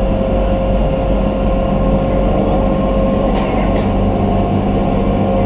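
Passenger shuttle boat's engine running steadily underway, heard from on board: a loud, even drone with a constant low hum.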